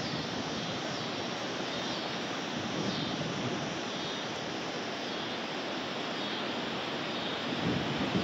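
Steady rush of wind through the trees ahead of an approaching storm, with a faint high chirp repeating about once a second.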